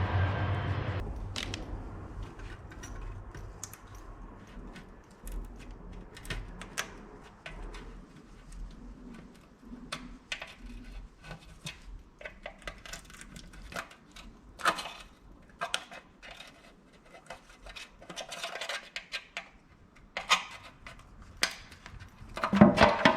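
Engine running, cutting off about a second in; after that, scattered metallic clicks and clinks of hand tools and small metal parts being handled, with a louder clatter near the end.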